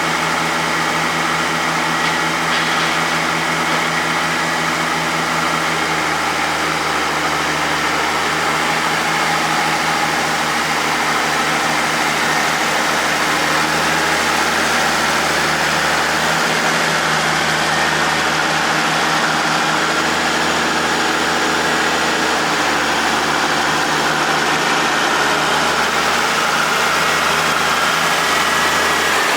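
Oliver 88WT backhoe's tractor engine running steadily at idle.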